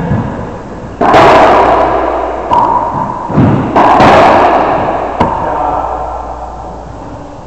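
Racquetball rally in an enclosed court: the ball is struck by racquets and smacks off the walls and floor. There are about five or six sharp hits in the first five seconds, each ringing out with a long echo.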